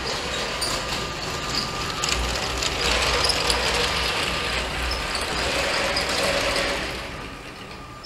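Motorised LEGO regional express train running on plastic track, a steady rattle from motor and wheels that grows louder about two seconds in and fades away after about seven seconds as the train reaches the station.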